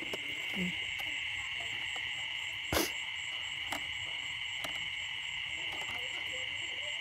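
Dense chorus of small frogs calling after rain, a steady high-pitched din, with a fast pulsing higher up. A single sharp click about three seconds in.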